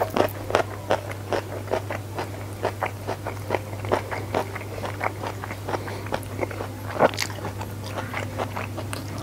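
Close-miked chewing of a mouthful of rice and sambal, a train of short mouth clicks about three a second, one louder near the end, over a steady low hum.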